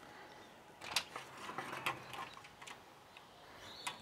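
Someone moving about at an open doorway: a few light clicks and knocks over soft rustling, the clearest about a second in and right at the end.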